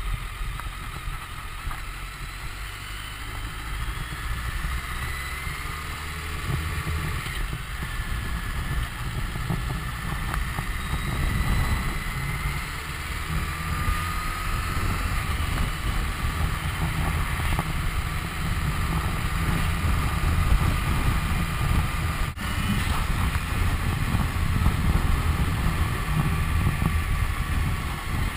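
BMW K1300S inline-four motorcycle engine running under way, its low note mixed with steady wind noise on the camera microphone. The sound grows louder over the first dozen seconds as the bike gathers speed.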